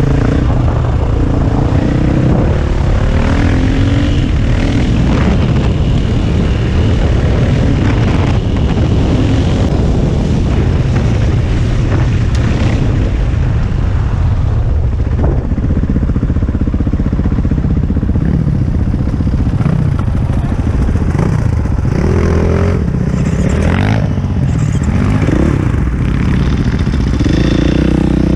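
KTM EXC450 enduro motorcycle's single-cylinder four-stroke engine being ridden off-road, its revs rising and falling again and again as the throttle is opened and closed, over a steady rumble.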